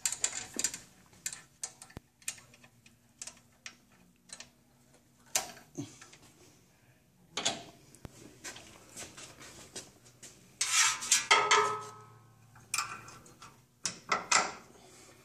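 Scattered metallic clicks and clinks of a parking brake cable and its steel fittings being handled and hooked into a bracket under a car, with a busier rattle of metal on metal, ringing faintly, about eleven seconds in.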